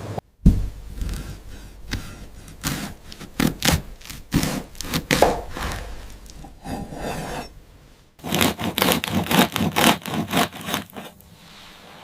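Repeated rasping strokes, like sawing or scraping, two to three a second, with a short lull about two-thirds through and then a faster, louder run of strokes before they stop near the end.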